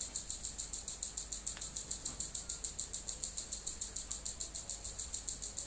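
An insect calling with a high, evenly pulsing chirp, about eight pulses a second, with a faint click about a second and a half in.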